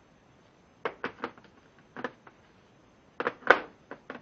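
Scattered sharp clicks and knocks of small metal E-sockets against their plastic tool-kit tray, loudest in a cluster about three and a half seconds in.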